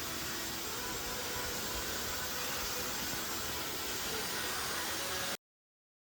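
Vacuum cleaner running with a steady whooshing hum, which cuts off suddenly near the end.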